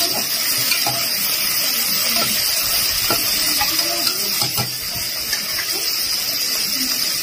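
A spoon stirring and scraping in a steel bowl, with a few light clinks against the metal, over a steady high hiss.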